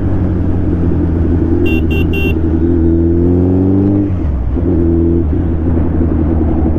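Suzuki Hayabusa motorcycle engine running under way, its pitch climbing slowly as it accelerates and then dropping about four seconds in as the throttle eases. A vehicle horn gives three short toots about two seconds in.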